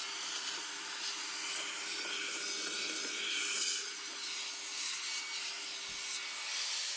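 Vacuum cleaner running steadily, its hose nozzle sucking air with a hiss while it is worked around the rubber door seal of a tumble dryer to pull out lint and dust.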